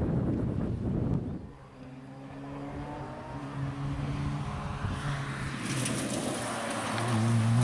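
Ford Fiesta rally car's engine running hard on the approach, its note stepping as it changes gear and growing louder as it nears. The tyres hiss over loose gravel as it passes close near the end.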